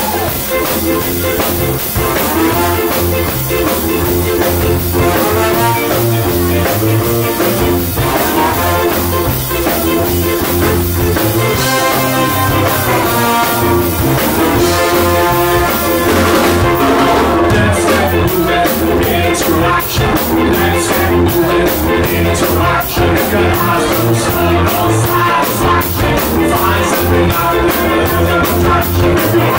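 Live ska band playing: saxophone and trumpet over electric guitar, bass guitar and drum kit, with singing, at a steady beat.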